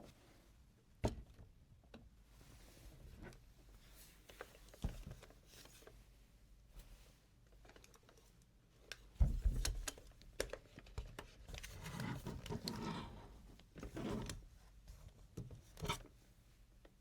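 Close-up handling of toy packaging: scattered clicks and taps, a louder thump about nine seconds in, and short bursts of rustling later on.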